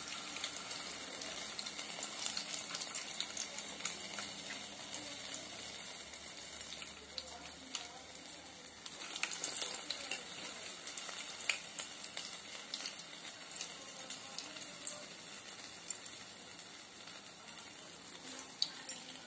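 Urad dal vadas deep-frying in hot oil in a kadai: a steady sizzle with frequent small crackles and pops.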